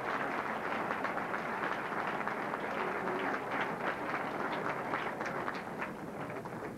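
Audience applauding, a dense steady patter of many hands clapping that gradually dies down near the end.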